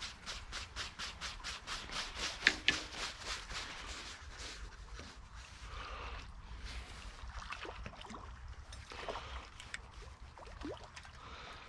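Fishing reel ticking evenly, about four clicks a second, for the first four seconds or so, then stopping; after that only the faint trickle of the stream and small scattered noises.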